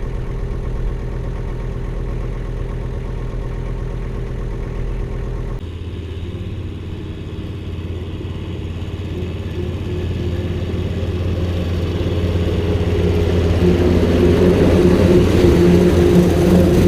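Diesel engine running steadily. About five and a half seconds in, the sound switches abruptly to another engine note, which grows louder toward the end.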